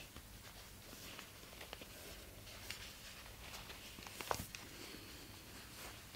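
Faint rustling of quilted fabric and bias binding being folded and handled, with a few small clicks, the loudest about four seconds in.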